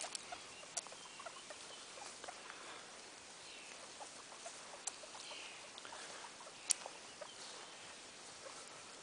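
Guinea pigs grazing in grass: soft rustling and many small scattered clicks of grass being bitten and chewed, with a few sharper ticks.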